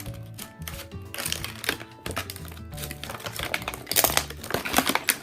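Plastic toy packaging crinkling as it is handled and pulled open, loudest about four to five seconds in, over background music with a steady bass line.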